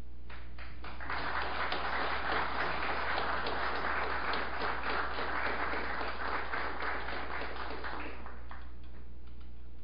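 Audience applauding. The clapping swells about a second in and dies away near the end.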